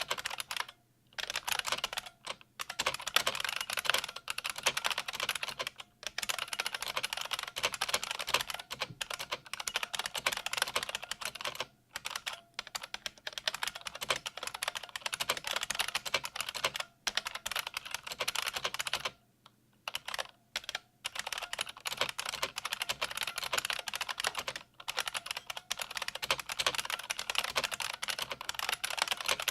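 Fast typing on a 1988 IBM Model M122 buckling-spring keyboard: dense runs of loud clicking keystrokes, broken by short pauses.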